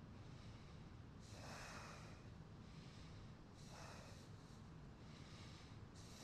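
Faint, slow breathing by a person: about four soft rushes of air a second or two apart, over a low room hum.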